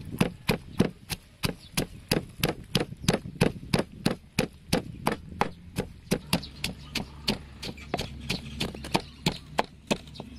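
Wooden pestle pounding sliced red onion, chilies and garlic in a wooden mortar, in a steady rhythm of about four strokes a second.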